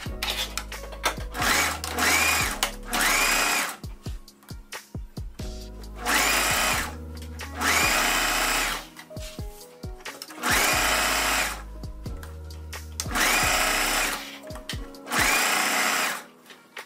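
Sewing machine stitching hair wefts onto a wig cap in short runs: about seven bursts of roughly a second each with pauses between, the motor whine rising as each run starts.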